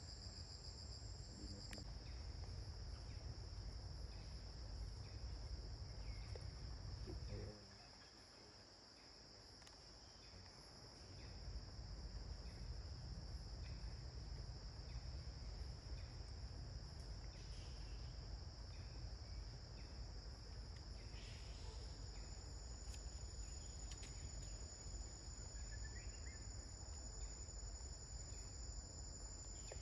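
Steady high-pitched insect chorus, crickets or similar, over a low rumble that fades out for a few seconds about a quarter of the way in.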